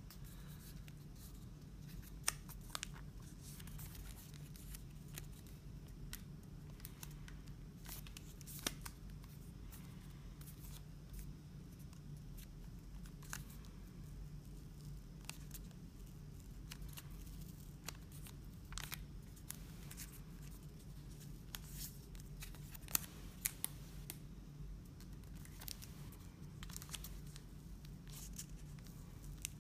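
Clear protective plastic film being peeled off the back of a smartphone: faint, scattered crackles and ticks from the film, over a steady low hum.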